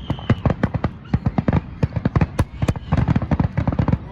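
Fireworks going off in rapid succession: a dense string of sharp bangs and crackles, many a second.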